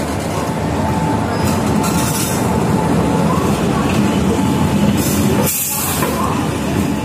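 Indian Railways WAP-4 electric locomotive rolling past, a steady low rumble of its wheels and running gear, with short bursts of high hiss about two seconds in and again about five seconds in.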